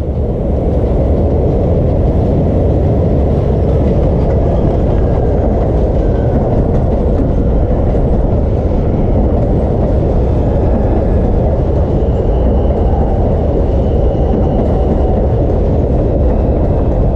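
R142 subway train on an elevated steel structure rolling into the station and along the platform: a loud, steady rumble of wheels on rails.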